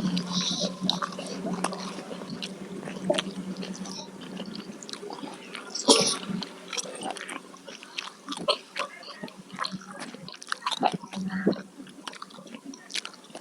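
Close-miked eating sounds: wet chewing and lip smacks with a steady scatter of small clicks, and one sharp, louder bite about six seconds in.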